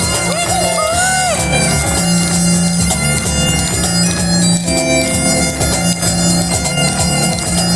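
Bagpipes playing a tune over their steady drones, with the duo's piano and cajón accompaniment. A brief whoop from the audience sounds near the start.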